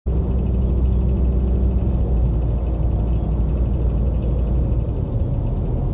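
Heavy machine's engine running steadily: a low, even rumble.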